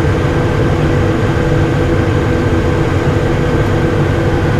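Cockpit noise of a Cessna Citation I twin-turbofan jet climbing at climb power: a steady rumble of engines and airflow with a constant whine on top.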